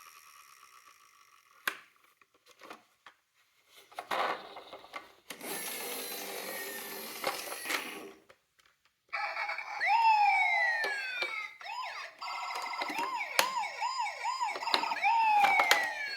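Electronic sirens of toy ambulance and police cars: several sound at once from about nine seconds in, with long falling wails and a run of quick yelps, about four a second. Before that there are a few clicks and a stretch of hissing noise.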